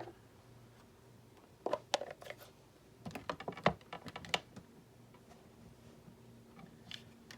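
Small sharp clicks and taps in two quick clusters, about two seconds in and again around three to four seconds, with one more near the end: paper craft pieces and tools being handled on a tabletop.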